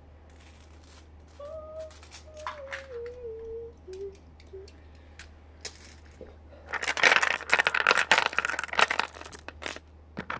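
Marbles rolling and clattering through a transparent plastic marble run, with scattered clicks at first and then a dense, loud rattling run of many marbles from about seven to nine and a half seconds.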